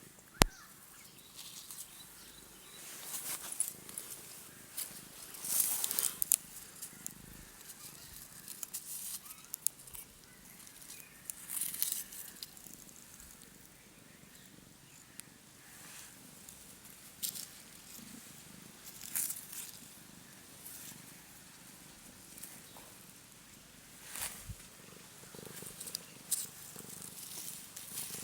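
Domestic cat purring with a low, steady rumble, with short scratchy scuffs every few seconds and a sharp click just at the start.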